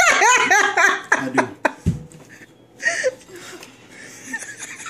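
A girl's high-pitched voice in quick rising-and-falling bursts for about the first second and a half. A short dull thump follows about two seconds in, then a brief rustle with a short vocal sound about three seconds in.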